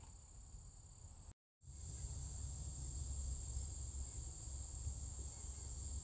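Prairie insects trilling steadily in a high, continuous buzz. The sound cuts out completely for a moment about a second and a half in, then returns slightly louder with a low rumble under it.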